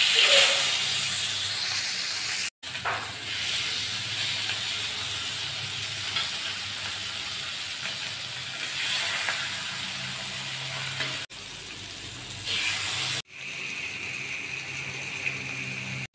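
Masala-coated rohu fish pieces sizzling on a hot iron tawa, a steady hiss that swells each time another piece is laid down. The sound drops out suddenly for a moment a few times.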